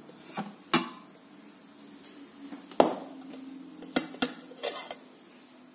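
Stainless-steel bowl knocking against the steel inner pot of an Instant Pot as it is lifted out with a towel and set down: a handful of separate metal clanks, the loudest about three seconds in.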